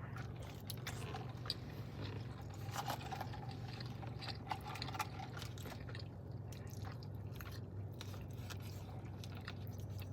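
A person chewing and biting food close to the microphone, with scattered short wet clicks and crackles from the mouth. A steady low hum runs underneath.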